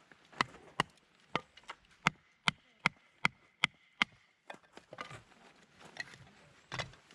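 About ten sharp striking blows at an even pace of roughly two and a half a second, the later ones ringing with a metallic tone, then a few quieter knocks and rustles.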